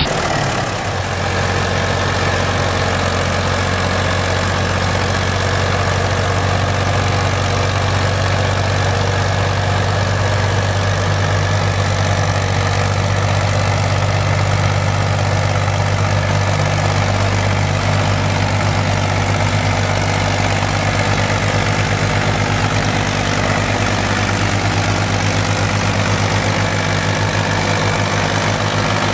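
Farm tractor engine running steadily and hard while the tractor is stuck in deep mud towing a field sprayer.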